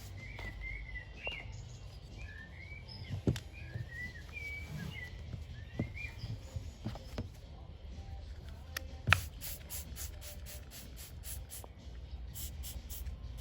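A small bird chirping in short rising and falling calls during the first half, over a low steady hum. A few sharp clicks or knocks sound, the loudest about nine seconds in.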